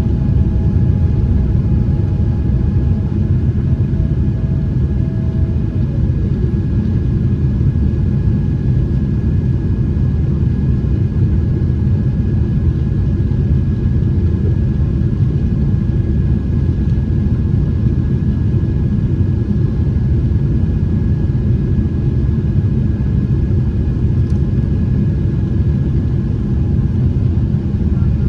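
Steady cabin rumble of a Boeing 777-300ER with its GE90 engines running, heard from a passenger seat, with a few steady whining tones above the drone. One of the tones drops in pitch and fades about six seconds in.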